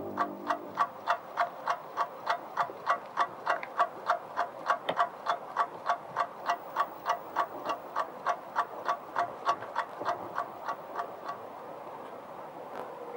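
A clock ticking steadily and fast, about three ticks a second, fading away near the end over a faint hiss.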